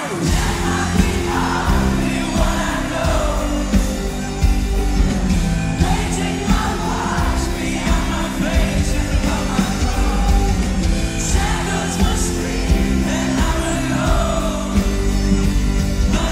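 Live pop-rock band in full swing, heard from within the crowd: drums and bass kick in right at the start under a sung vocal line.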